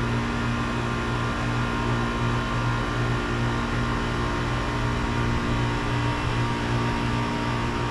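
2009 Goodman GSC13 air conditioner with a Copeland reciprocating compressor, running steadily just after start-up. It is a steady mechanical hum with a low throb that pulses regularly, about twice a second.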